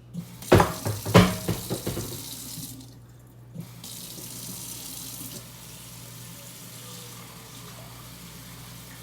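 Water running from a kitchen tap into the sink, steady after a short break about three seconds in. There are a few loud clanks in the first two seconds.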